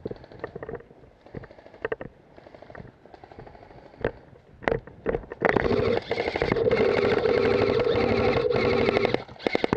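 G&G airsoft electric rifle (AEG) firing a sustained full-auto burst of about four seconds, starting a little past halfway: a rapid rattle over the steady whine of the gearbox motor. A few scattered clicks come before it.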